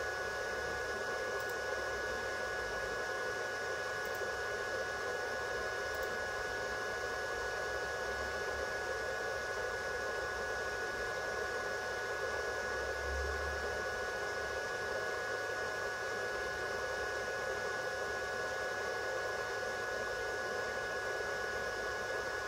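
Steady fan-like whirring hiss with a few constant high whining tones, unchanging throughout.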